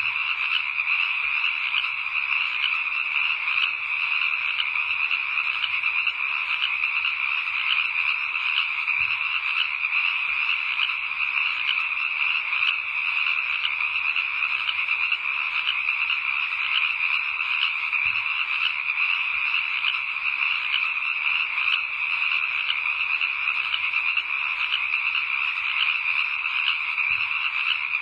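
Steady night-time chorus of many calling animals, a dense high pulsing sound that runs on without pause.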